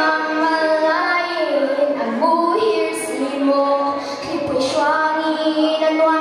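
A young girl singing solo into a microphone, holding long notes that change pitch every second or so.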